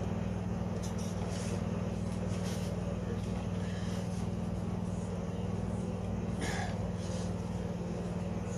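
Briggs & Stratton 163cc single-cylinder snowblower engine running steadily, with a brief noise about six and a half seconds in.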